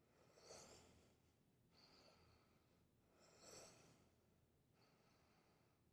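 Near silence with faint, slow breathing from a woman holding a deep forward fold: two soft breaths about three seconds apart, with a fainter one between.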